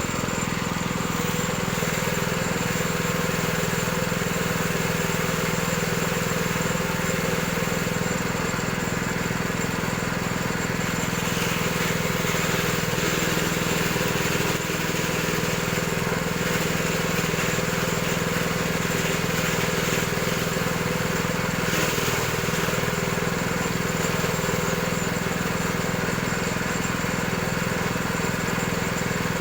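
Coconut-husk shredding machine running steadily, its motor-driven noise unbroken and even.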